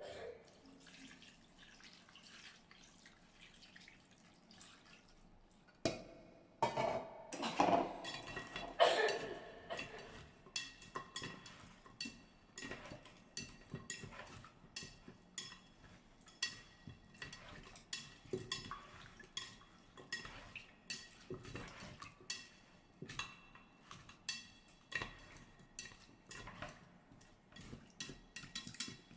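Kitchenware clattering: a few louder knocks of pots and dishes, then a long run of light, regular clinks about twice a second, like a utensil tapping against a dish.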